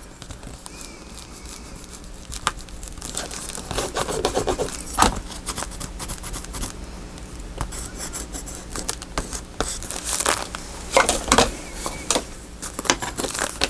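Paper crafting handling noises: paper and tape rustling, rubbing and scraping on a desk, with scattered light taps and clicks.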